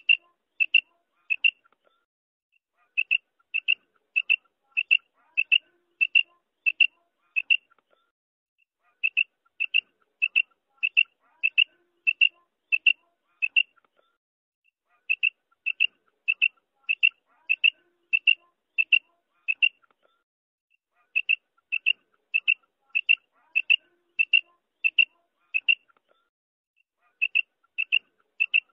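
Female quail (batair) calling: short high-pitched notes about two a second, in runs of about eight, with a pause of about a second and a half between runs. The pattern repeats evenly throughout.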